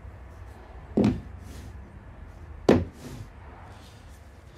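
Two knocks of cordless power-tool batteries being set down on a workbench, about a second and a half apart.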